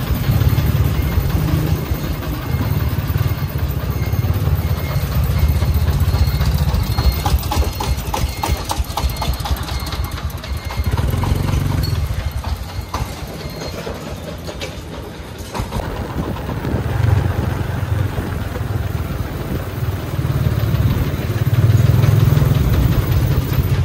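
The 24-horsepower diesel engine of a sand-laden công nông truck chugging as it drives. The low throb rises and falls with the throttle, easing off around the middle and getting louder again towards the end.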